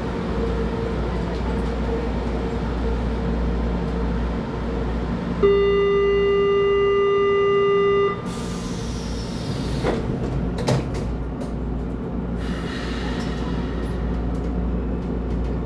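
Frota L metro train at a station: over the car's steady hum, a steady door-warning tone sounds for about three seconds. A hiss falling in pitch and two knocks follow as the sliding doors close.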